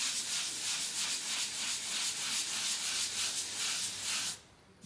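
Sanding sponge rubbed back and forth over a dried joint compound skim coat on a drywall patch, at about three strokes a second. This is the final sanding to smooth the patch, and it stops a little over four seconds in.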